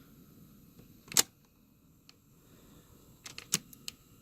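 Sharp mechanical clicks from hands working on a cassette recorder's tape mechanism and reed switch: one loud click about a second in, then a quick cluster of several clicks around three and a half seconds.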